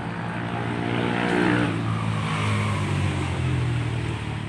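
A motor vehicle's engine passing on a nearby road, growing louder to a peak around the middle, then fading.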